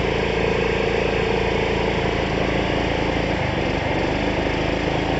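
Small engine of an artisanal dredge pump running steadily, turning the suction pump through a V-belt.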